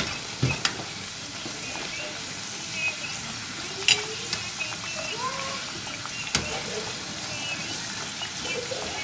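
Plantain slices for patacones deep-frying in a pot of hot oil, sizzling steadily, while a wire spider skimmer stirs them and clinks against the pot a few times.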